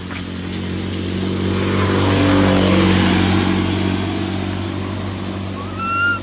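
A motor vehicle passing by: a steady engine hum and road noise swell over the first three seconds, then fade. Near the end a baby macaque gives one short, high squeal.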